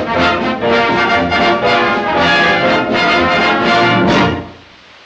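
Orchestral dance-band music led by brass, ending on a final note a little over four seconds in. After it only a faint hiss of an old film soundtrack remains.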